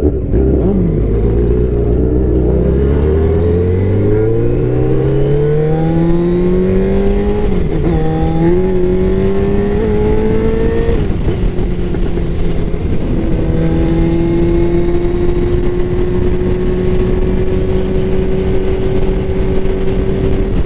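Yamaha R1 motorcycle's inline-four engine pulling away and accelerating, its pitch climbing for about nine seconds with a short dip in pitch about seven and a half seconds in, then settling into a steady note at cruising speed, with wind and road noise throughout.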